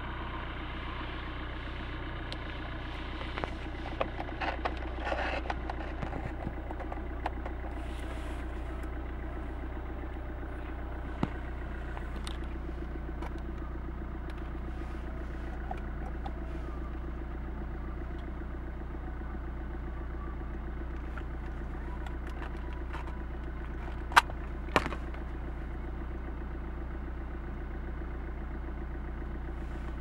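Car engine idling steadily, heard from inside the cabin. Over it come scattered handling clicks and rustles from a cigarette-lighter socket adapter and its cable, with two sharp clicks about half a second apart late on.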